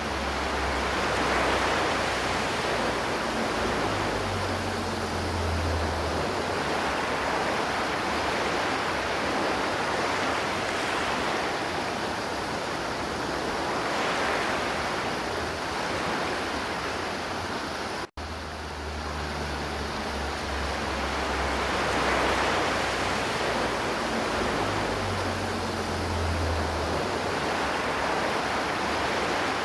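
River water flowing and rushing steadily. The sound cuts out for an instant about two-thirds of the way through, then resumes.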